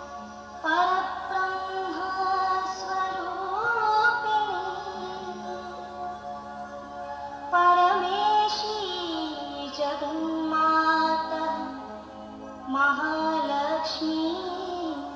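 A song with a woman singing over a steady accompaniment; new sung phrases begin about a second in, halfway through and again near the end.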